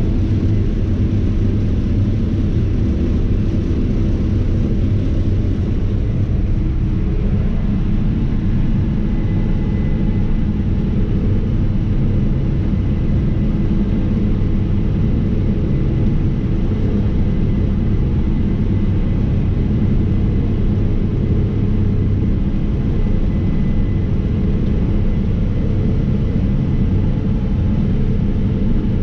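Case IH 9250 Axial-Flow combine running steadily under load while harvesting wheat: a constant low engine and threshing drone, with no change in pitch or level.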